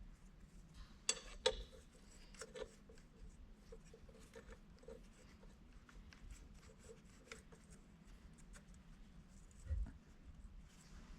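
Light clicks and taps of hand tools and metal parts being handled while fitting manifold spreaders to a seized turbocharger's exhaust housing. There are two sharper clicks a little over a second in and a dull thump near the end.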